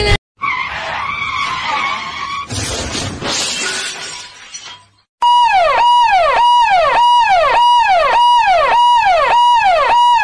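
A siren-like sound effect: a tone held briefly, then dropping sharply in pitch, repeated about twice a second; it comes in loud about five seconds in. Before it, a few seconds of noisy, muddled sound fade out into a brief silence.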